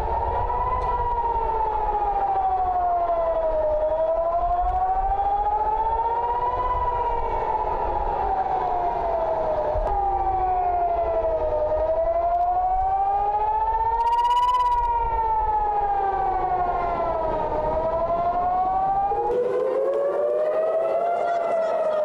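Civil-defence air raid siren wailing, its pitch rising and falling slowly in a cycle of about six seconds: the warning of an incoming rocket attack.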